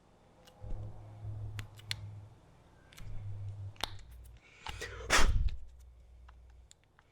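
Rubber isolator bushings being worked into a metal compressor bracket by hand: stretches of low rubbing and creaking with small clicks, and one loud sharp pop about five seconds in.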